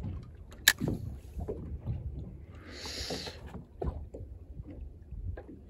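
Low steady rumble of wind and water around a small fishing boat, with one sharp knock a little under a second in and a brief hiss about three seconds in.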